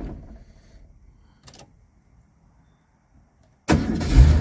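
1982 Ford Mustang GT's 5.0 V8 dying away after being switched off, then a few seconds of quiet broken by a single click. Near the end the starter cranks briefly and the engine fires right up and settles into a steady idle, restarting easily even though it is fully heat-soaked.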